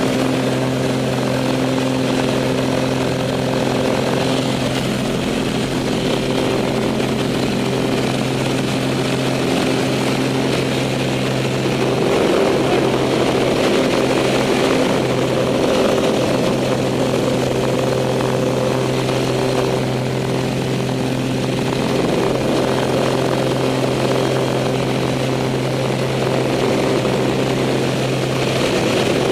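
Pitts biplane's piston engine and propeller running steadily, heard from inside the cockpit with air rushing past. A little under halfway through the engine note briefly wavers and the rush gets louder.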